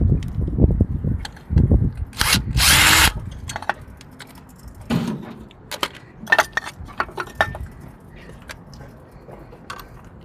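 A tool with a 10 mm socket undoing the oil cooler's bolts: low running in the first couple of seconds, then two short buzzing runs about two to three seconds in, followed by scattered clicks and metal rattles from the loosened parts.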